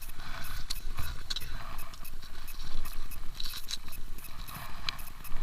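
Wind buffeting the microphone as an uneven low rumble, with scattered short clicks and knocks of handling.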